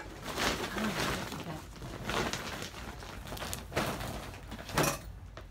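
Clear plastic garment bags and sheeting rustling and crinkling as they are handled, in irregular bursts, with a sharper crackle near the end.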